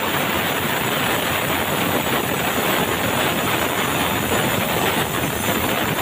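Sawmill band saw ripping red meranti timber: a steady, dense noise of the running blade and motor with no let-up.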